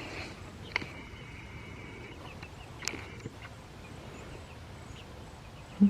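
Young chickens calling. One high call is held for about a second, starting about a second in, among a few light clicks, and a dull thump comes at the very end.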